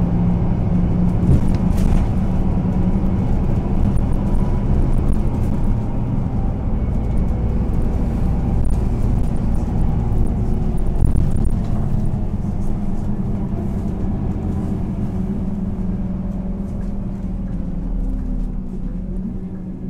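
Scania K230 UB city bus with a ZF gearbox running under way: a steady diesel engine drone that gradually fades and falls in pitch over the last few seconds.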